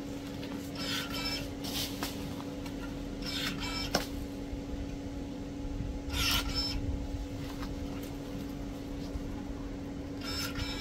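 Kebtek KTE-35 cordless pruning shears with a brushless motor, whining in about five short bursts as the blade is driven through branches, with one sharp snap about four seconds in.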